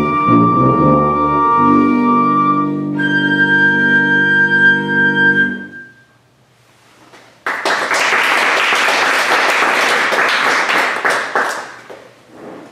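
Flute, cello and tuba trio ending a piece on a held final chord, the flute's high note over the low tuba and cello, which dies away about halfway through. After a short pause an audience applauds, fading out near the end.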